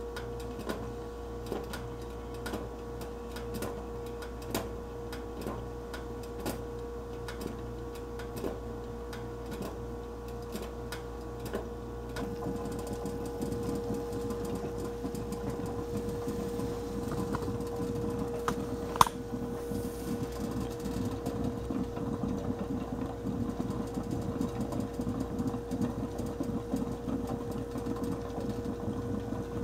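Vintage stainless-steel stovetop percolator heating on an electric coil burner: scattered ticks and clicks, then about twelve seconds in a denser, rapid bubbling sets in as the water starts to perk, with one sharp click a little after halfway.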